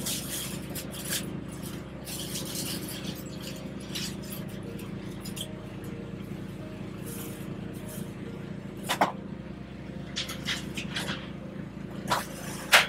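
Steady hum of kitchen equipment in a small food-trailer kitchen, with scattered clinks and clatter of utensils and containers being handled. The sharpest knocks come about nine seconds in and just before the end.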